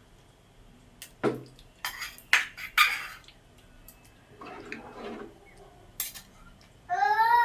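Kitchen utensils clinking and knocking against a pot and bowls, several sharp knocks between about one and three seconds in, then a short scrape and a single click. Near the end a loud, high, wavering call begins.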